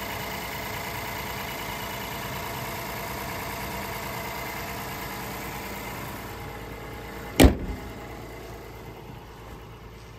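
Honda Ridgeline's J35 V6 idling steadily on a cold start, with no knocking: the engine is healthy. About seven seconds in there is a single loud bang, the hood being shut, and after it the engine sounds quieter.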